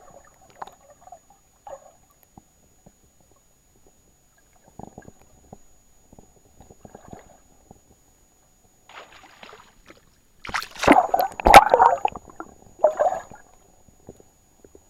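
Water heard by a microphone in a submerged camera housing, muffled: scattered faint knocks and gurgles, then a loud burst of splashing and sloshing lasting about three seconds, starting about two-thirds of the way through.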